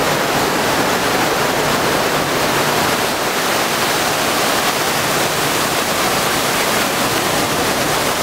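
Steady, loud rush of turbulent water in a canal lock chamber.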